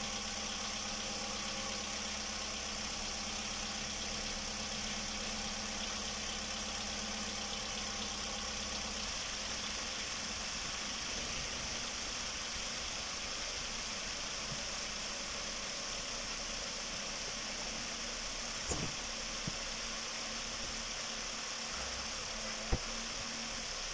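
2014 Kia Rio engine idling steadily while air is bled from its cooling system, with two light ticks in the last few seconds.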